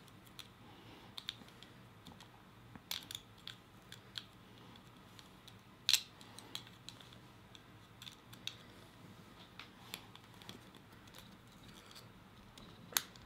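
Scattered small clicks and snaps of plastic model-kit parts being handled and pressed together, with a few sharper clicks standing out, the loudest about six seconds in and another near the end.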